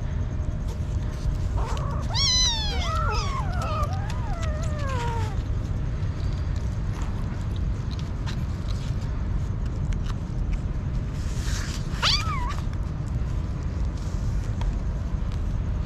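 Kittens meowing: several high, overlapping meows a couple of seconds in, then a single sharp meow about twelve seconds in, over small clicks and a steady low background noise.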